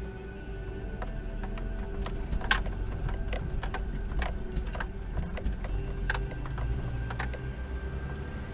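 1989 Mitsubishi Pajero 4WD driving slowly over beach sand: a steady low rumble of engine and wind, broken by about half a dozen sharp clicks and knocks as the body and fittings rattle over the uneven ground.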